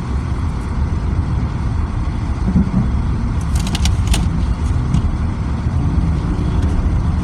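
Car driving on a snowy road, heard from inside the cabin: a steady low rumble of engine and tyres. A few brief clicks come a little past halfway.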